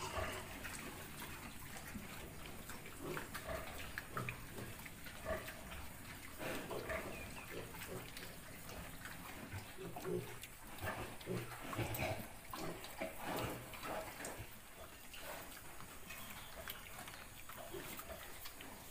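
A nursing sow and her piglets making short, irregular sounds, with a few stronger, deeper ones about eleven to thirteen seconds in.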